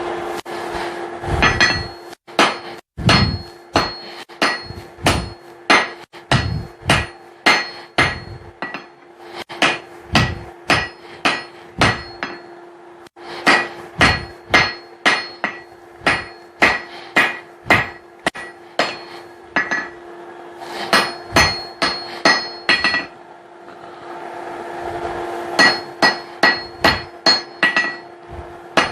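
Blacksmith's hand hammer striking hot steel on an anvil, about two ringing blows a second, in runs broken by short pauses, over a steady low hum.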